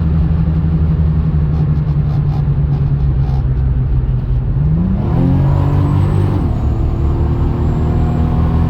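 Turbocharged Lexus IS300 inline-six cruising steadily, then accelerating from about four and a half seconds in, with the engine note rising and a high turbo spool whistle joining it. The note steps down briefly about two seconds later and the whistle carries on. With the wastegate dump recirculated into the downpipe, only turbo spool and muffled exhaust are heard, with no wastegate roar.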